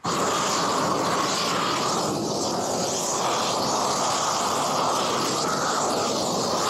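Gas roofing torch burning with a steady rushing flame noise as it melts the underside of a bitumen torch-on membrane being rolled out.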